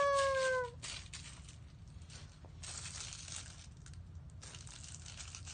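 A child's voice trails off with a falling pitch in the first moment. Then come faint rustles and small clicks of fingers handling and squeezing a small soft panda squishy toy.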